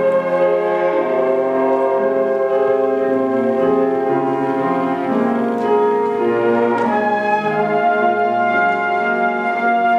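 Flute ensemble playing slow, sustained chords in several parts.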